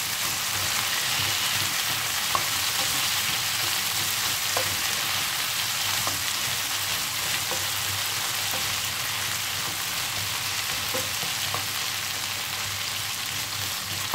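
Diced potatoes sizzling steadily in melted butter in a nonstick frying pan, stirred with a wooden spatula, with a few faint clicks.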